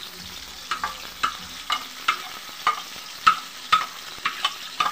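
Blended onion paste being scraped from a bowl into hot oil: a metal spatula knocks and scrapes against the bowl about twice a second over a steady sizzle of frying.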